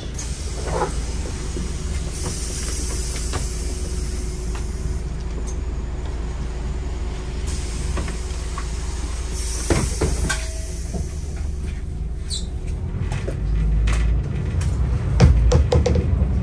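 Bus in motion, heard from inside: a steady low rumble of engine and road, with frequent rattles and knocks from the bodywork and two spells of high hiss, the first a couple of seconds in and the second about ten seconds in.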